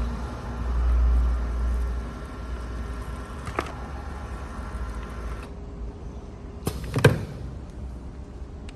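Semi-automatic spout pouch filling machine at work: a low hum and rumble while the pouches fill, easing off after about two seconds. A short falling squeak comes in the middle, and a loud mechanical clunk about seven seconds in.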